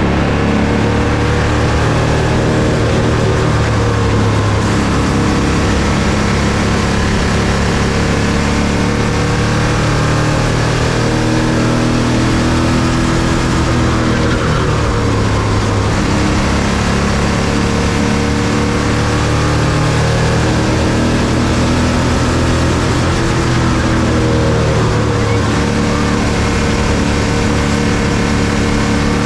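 Bandolero race car engine, a Briggs & Stratton single-cylinder, running hard at racing speed. Its pitch falls and rises again every several seconds as the car lifts and gets back on the throttle through the turns.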